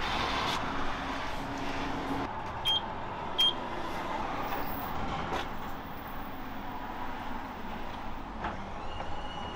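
Vending machine's banknote acceptor whirring as it takes in a note for about two seconds, then two short electronic beeps from keypad presses under a second apart, over steady street traffic noise.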